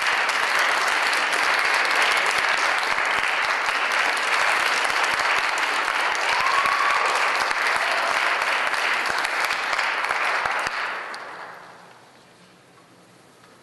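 Audience applauding, the clapping dying away about eleven seconds in.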